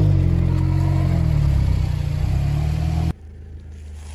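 Car engine running steadily at low revs, its pitch dipping slightly at the start and again about a second and a half in. It cuts off abruptly about three seconds in, leaving a quieter steady background noise.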